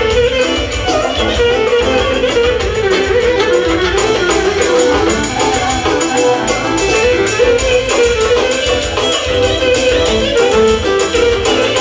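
Live band music amplified through PA speakers: an electric violin playing the melody over Korg synthesizer keyboard and drums, with a steady beat.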